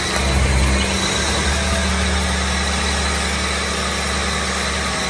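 Diesel engine of a CASE single-drum road roller running steadily as the machine drives along.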